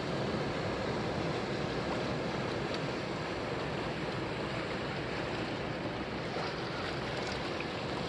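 Sea surf washing in over a rocky, sandy shore: a steady rush of small breaking waves and foam.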